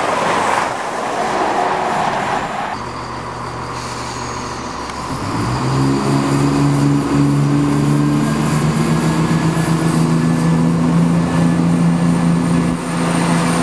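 A CrossCountry Voyager rushing past at speed. After a sudden cut, a Class 170 Turbostar diesel multiple unit hums at the platform. About five seconds in, its underfloor diesel engines rev up into a steady drone, its note rising and then holding, as it pulls away.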